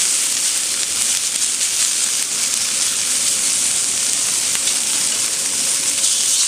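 Taiwanese salted pork belly sizzling on a hot barbecue hotplate, frying in its own rendered fat: a steady hiss with fine crackles.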